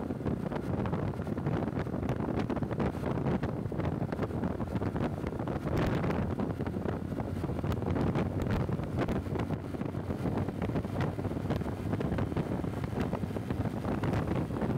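Wind buffeting the microphone over steady road and vehicle noise while riding, a dense low rumble with constant flutter.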